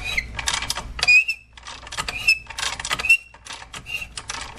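A ratchet wrench clicking irregularly as it turns the center bolt of a three-jaw gear puller, with about four short high metal squeaks as the golf cart's driven clutch is drawn off its shaft under load.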